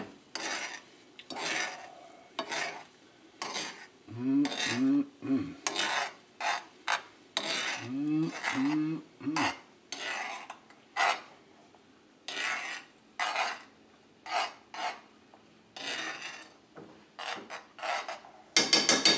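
A metal utensil stirring and scraping a creamy Parmesan sauce around a metal skillet, in irregular strokes roughly once a second. Twice there is a run of three short low pitched tones.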